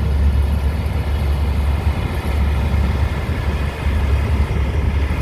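Vintage John Deere row-crop tractor's engine running steadily as it drives slowly past, a continuous low rumble.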